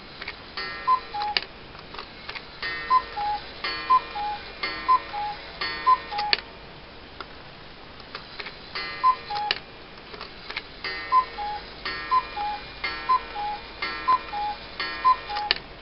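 Hunter-style cuckoo clock calling as its minute hand is turned forward. Each call is a two-note high-then-low cuckoo: one call, then four, then one, then five, the single calls marking the half hours and the groups the hours. The clock ticks in the pauses.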